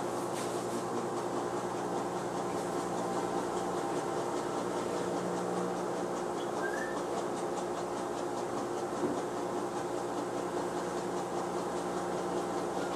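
Front-loading washing machine running mid-cycle: a steady mechanical hum made of several held tones, with no clear change.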